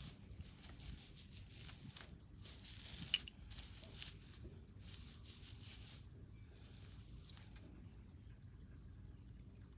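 Rustling and crinkling of a nylon cast net being gathered and sorted by hand, in short hissy bursts that die down about seven and a half seconds in. A faint steady high whine sounds throughout.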